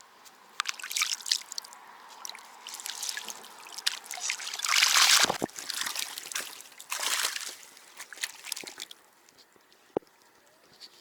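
Water splashing and sloshing in irregular bursts, loudest about five seconds in, with a single sharp click near the end.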